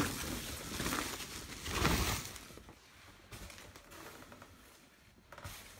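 Rustling and scraping of packing material being handled around an unboxed portable air conditioner, loudest about two seconds in, then quieter with a few light knocks.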